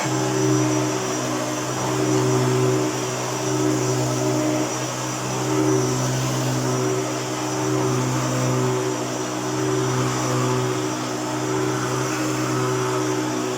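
Hoover Turbopower U2806 upright vacuum cleaner running, with a steady motor hum whose loudness swells and eases every couple of seconds as it is pushed back and forth. Its brush roll has a worn bearing that the owner says gives a grumble.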